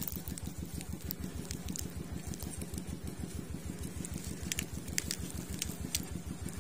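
A small engine running steadily at an even, rapid pulsing beat, with a few light clicks over it.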